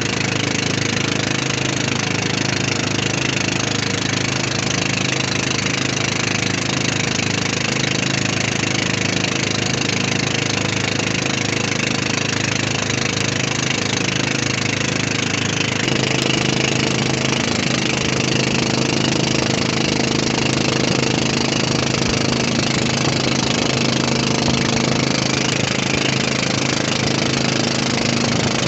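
A 7 hp ketinting longtail boat engine running steadily at high throttle, pushing a wooden boat. About sixteen seconds in, its note shifts slightly and gets a little louder.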